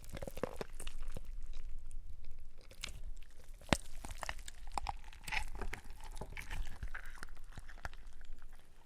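Gore sound effect of flesh being torn and crunched: a continuous crunching and tearing with many small cracks, one sharp crack about three and a half seconds in, tapering off near the end.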